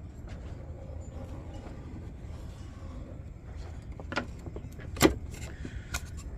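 Wooden templates and board being handled on a workbench: scattered light clicks and knocks, the sharpest knock about five seconds in, over a steady low rumble.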